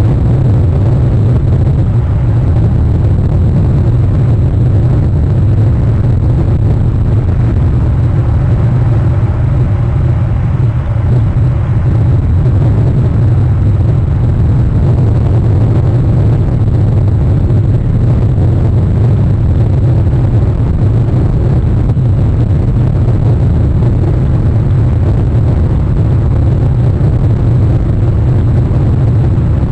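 Steady low rumble of wind and rain on an outdoor webcam microphone.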